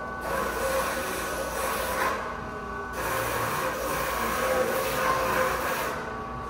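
Electric shoe-shine machine running, its motor humming steadily while the rotating brushes scrub a shoe. The brushing comes in two stretches with a short break about two seconds in.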